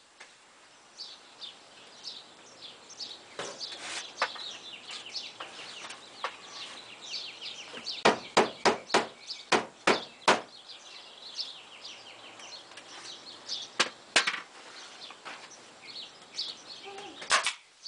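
A pneumatic staple gun firing with sharp snaps: a quick run of about eight shots a little after the middle, and a few single shots before and after. Birds chirp throughout.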